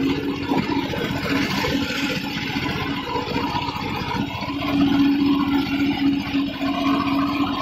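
Diesel farm tractor engine running steadily under load while tilling a field, a constant drone with a dense, rapid firing rhythm, a little louder about five seconds in.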